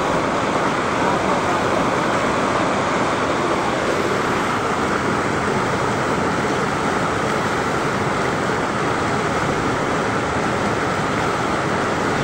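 Steady rushing of a fast river running over rocks, an even noise that holds at the same level throughout.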